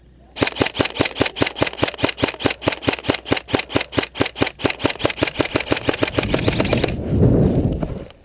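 Airsoft gun firing a long, even string of shots, about six a second, for roughly six and a half seconds, followed by a brief low rumble near the end.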